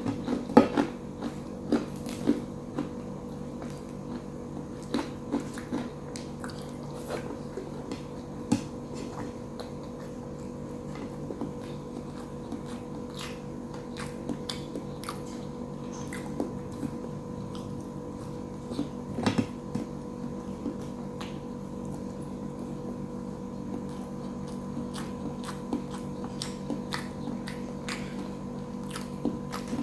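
Close-up eating sounds: chewing and biting on food, with scattered short crunches and clicks that bunch up in the first couple of seconds and again past the middle, over a steady low hum.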